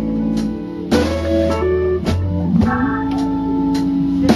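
Slow blues song, with guitar playing in a gap between sung lines.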